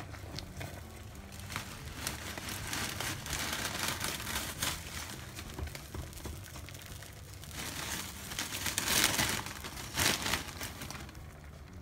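Dry rice vermicelli crackling and rustling as a hand feeds the brittle bundles into a pot of near-boiling water, with the loudest bursts about eight to ten seconds in.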